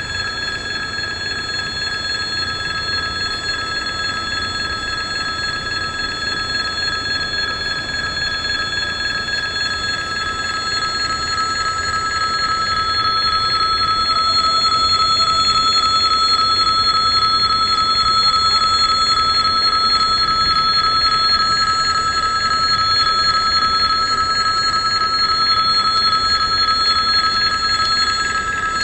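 Level-crossing electric warning bell ringing continuously, its rapid strokes merging into a steady ringing tone. It gets louder about halfway through.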